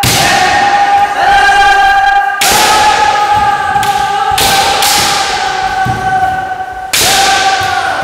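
Kendo kiai: long, held shouts from several fencers, overlapping, a new one starting every second or two. Sharp shinai strikes and foot stamps on the wooden floor come at the start of several shouts.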